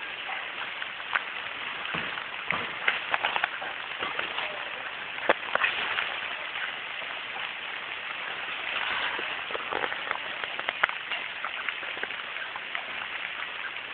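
Steady rain falling on leaves and grass, with irregular sharp taps of drops landing close by.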